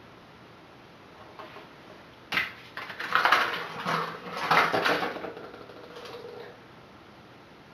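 Metal hair clips and combs clattering and clicking for a few seconds as they are picked through and handled.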